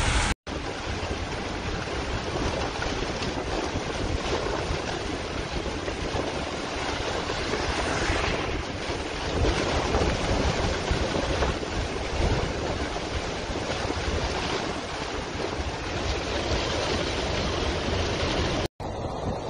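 Steady rushing noise of a heavy rainstorm with strong wind, wind buffeting the microphone. It drops out briefly twice, once just after the start and once near the end.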